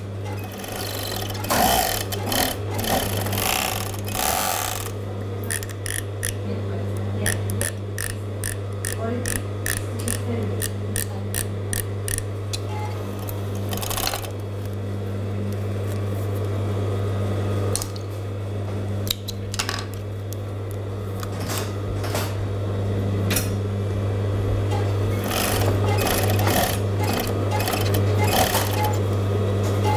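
Juki MO-6700 series industrial overlocker test-sewing a seam after its needle thread tension has been loosened: a steady motor hum, with runs of stitching and clicks that start and stop as the fabric is fed through.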